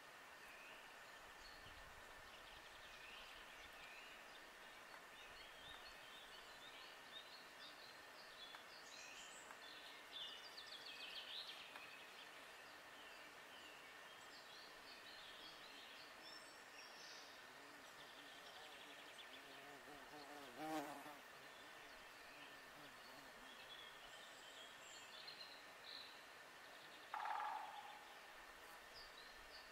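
Quiet woodland ambience with faint songbirds chirping throughout, and a flying insect buzzing briefly past the microphone about two-thirds of the way in. Another short, louder sound follows near the end.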